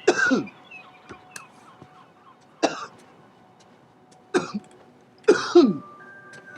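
A man coughing in four short fits a second or two apart, the last one a double cough.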